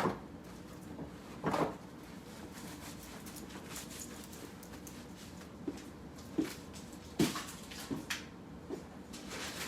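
Scattered light knocks, taps and rustles of things being handled on a table, a cluster of sharp taps a little past halfway, over a faint steady room background.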